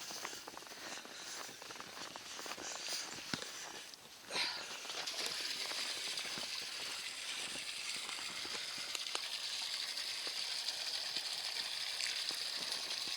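Water running steadily into a livestock water trough as it is topped up, a constant hiss starting about four seconds in after a few faint knocks and rustles.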